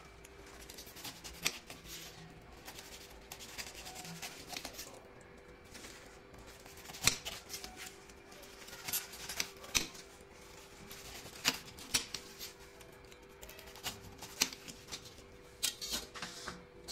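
Long kitchen knife cutting the crowns and bases off whole pineapples, making a series of sharp, crisp cuts and knocks at irregular intervals, with the loudest about seven seconds in. A faint steady hum runs underneath.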